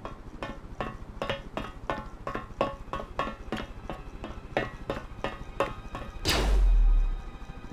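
Metallic footsteps clanking on a metal floor, about three a second, each with a short ring. Just over six seconds in they stop and a loud whooshing burst with a deep rumble lasts about a second.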